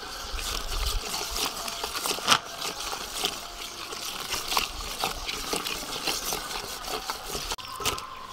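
Wire whisk beating a wet flour batter in a stainless steel bowl: irregular clicks and scrapes of the wires against the metal along with wet stirring of the batter.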